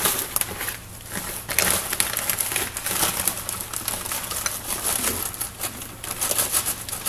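Plastic bag crinkling and rustling, irregularly, as green peas are tipped out of it into a small cooking pot.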